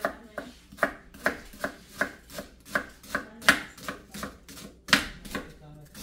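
Kitchen knife slicing an onion on a plastic cutting board: a steady run of sharp knocks, about two or three a second, as the blade strikes through to the board with each cut.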